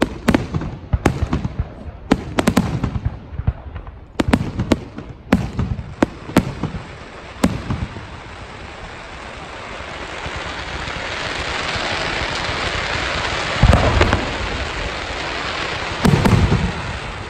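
Fireworks display: a fast string of sharp aerial-shell bangs over the first seven seconds or so. Then a steady crackling hiss from ground-level fountains builds up, broken twice near the end by deep booms.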